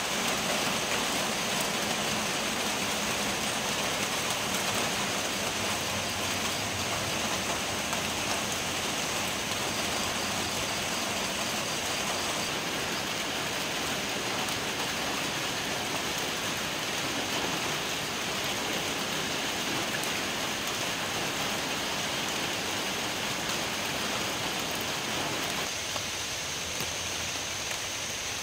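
Steady rain falling on grass, leaves and standing water, an even hiss with no let-up.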